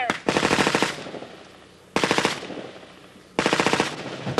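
Automatic gunfire: three bursts of rapid shots, each under a second long. The first comes right at the start, the second about two seconds in, and the third about three and a half seconds in.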